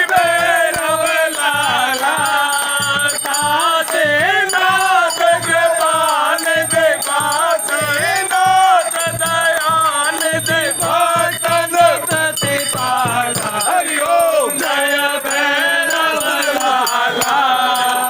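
Hindu aarti hymn sung with wavering melodic voices over a steady beat of percussion.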